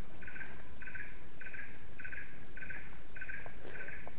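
Swamp animal calling in a steady rhythm: short buzzy pulses, a little under two a second, over a continuous high-pitched insect hum.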